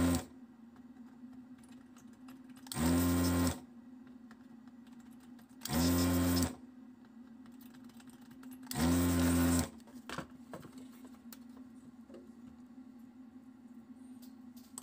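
Vacuum pump of a handheld desoldering gun switching on in short bursts, three times about three seconds apart, each lasting under a second, after the end of an earlier burst at the very start. It is sucking molten solder out of the through-hole pins of a mainboard's keyboard connector. A few faint clicks follow near the end.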